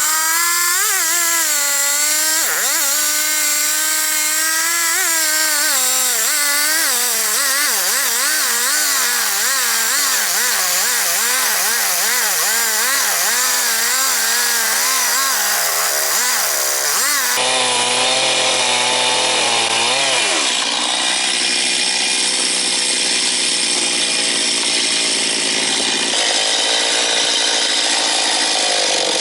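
Chainsaw running under load, cutting through a very hard, dense eucalyptus red box log, its engine pitch wavering up and down as the chain bites into the timber. About two thirds of the way in the sound changes abruptly and the engine note runs steadier.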